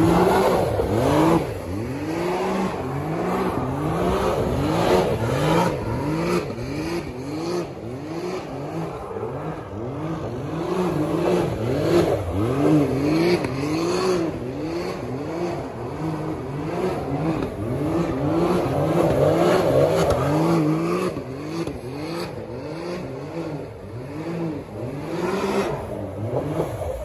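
Can-Am Maverick X3 side-by-side's turbocharged three-cylinder engine revving up and down over and over, about one and a half rises a second, while it spins donuts on pavement.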